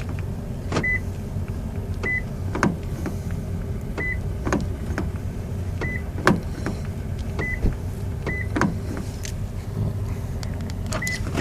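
Car cabin controls being worked: about seven short, high beeps at uneven intervals, each with a sharp click nearby, over a low steady hum.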